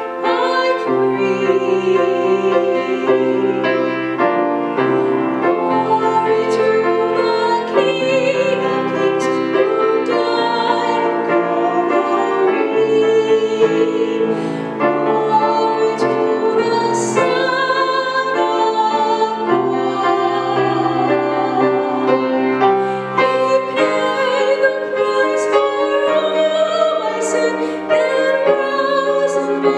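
A woman singing a solo gospel song with vibrato into a handheld microphone, over a steady instrumental accompaniment.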